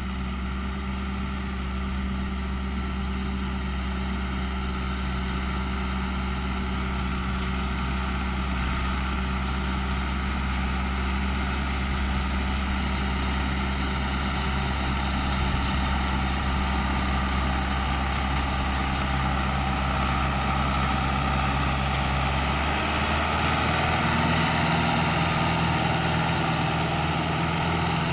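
John Deere 2130 tractor's three-cylinder diesel engine running steadily while pulling a baler through hay, its note shifting about 23 seconds in.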